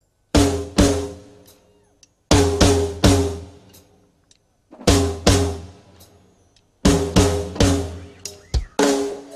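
Large stand-mounted drums struck in unison, each hit ringing with a deep, pitched boom that fades over about a second. The strokes come in groups of two, then three, then two, then a quicker run of about eight to close.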